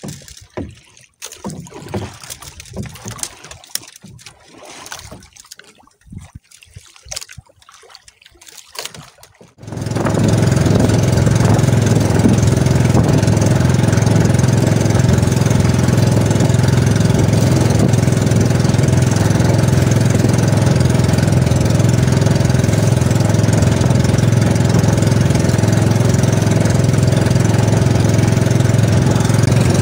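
Intermittent water sloshing and splashing beside the hull of a small outrigger boat. About a third of the way in, the boat's engine comes in suddenly and runs steadily and loud, with a low, even hum, to the end.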